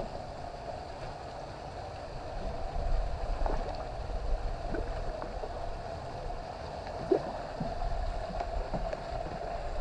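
Water trickling and gurgling in a shallow pond, a steady gentle flow with a low rumble underneath.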